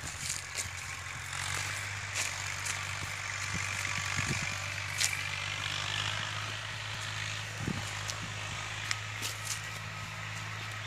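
Steady low motor hum, like an engine running at a distance, under a broad hiss. Scattered light crackles sound through it, fitting bare feet on dry leaves.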